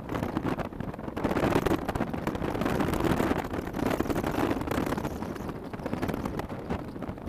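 Wind buffeting the microphone in uneven gusts, a rough low rumble with no steady engine tone.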